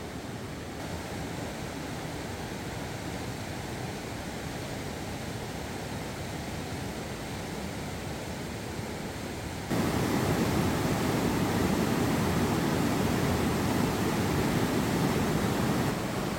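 Steady rushing of a fast mountain river, fainter at first and jumping suddenly louder about ten seconds in.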